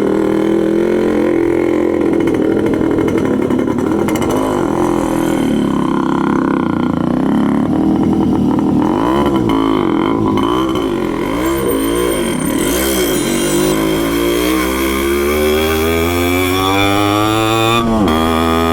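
Yamaha RX200 motorcycle engine running with its air filter removed. It runs steadily, is blipped about five times in quick succession around the middle, then revs up in one long rise that drops back sharply near the end.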